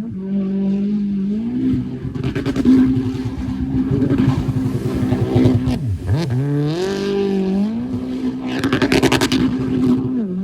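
Jet ski engine fitted with a Riva aftermarket exhaust, running and revving. The pitch holds, rises, drops sharply about six seconds in, then climbs back and holds again.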